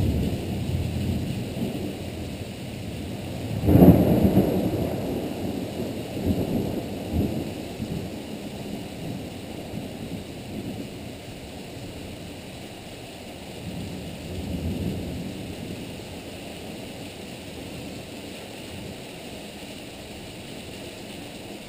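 Thunder: a loud clap about four seconds in that rolls on and fades, with weaker rumbles around seven and fifteen seconds, over steady heavy rain.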